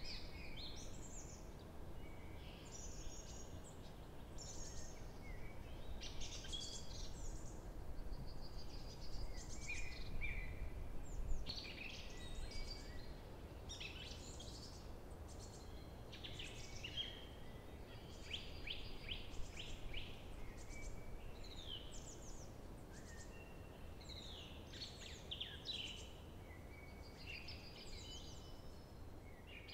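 Several songbirds singing and calling, one call after another and often overlapping, over a steady low background rush of outdoor ambience.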